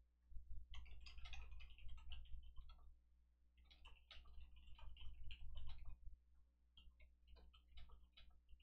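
Typing on a computer keyboard: quick runs of key clicks, in three bursts with short pauses between them.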